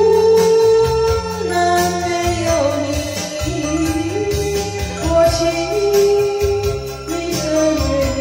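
Karaoke playback of a slow Chinese-language ballad: a sung melody of held notes moving in steps over a steady backing track, heard from a television's speaker.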